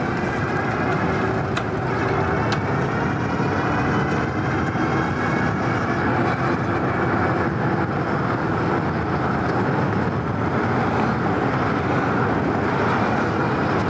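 Steady riding noise from a Super73 S2 electric bike at cruising speed on pavement: wind over the microphone and tyre roar, with a faint steady whine running through it.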